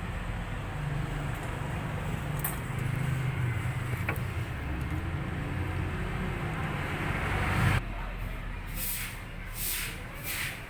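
Steady low rumble of a motor vehicle that stops abruptly about eight seconds in. It is followed by quick rubbing or scraping strokes, about two a second.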